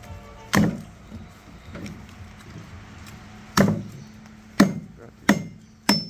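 A blade chopping through a large fish: one heavy chop, then after a pause four more in quick succession, the later ones leaving a short metallic ring.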